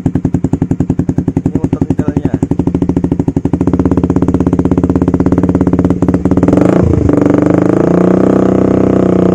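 Suzuki GSX-R150's single-cylinder engine through an aftermarket racing exhaust. It idles with distinct, loud exhaust pulses, then is revved up about three and a half seconds in and held at a higher, steady speed, with a brief dip and flare near the seven-second mark.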